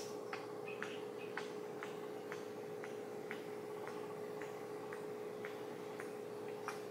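Faint regular ticking, about two ticks a second, over a steady low hum.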